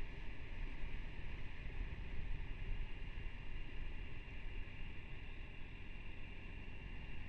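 Steady wind rush and road noise on a motorcycle helmet camera's microphone while riding at speed, with a heavy low rumble throughout.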